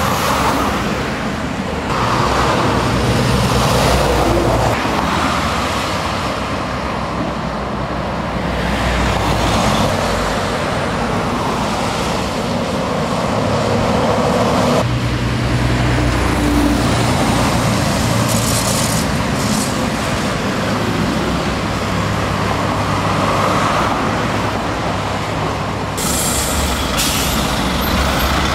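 Heavy goods lorries and cars driving past close by on a fast main road, diesel engines and tyre noise rising and falling as each vehicle goes by.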